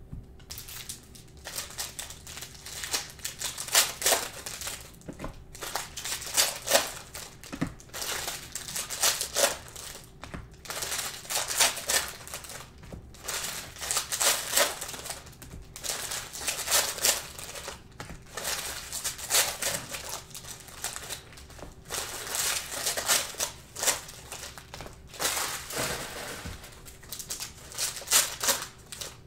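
Foil trading-card pack wrappers being torn open and crinkled by hand, over and over, in crackling spells a second or two long.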